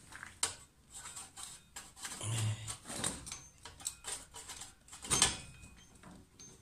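Light clicks and scrapes of a nickel-plated belt pulley being handled and fitted against a Peugeot 103 moped's rear hub, with a louder knock about five seconds in.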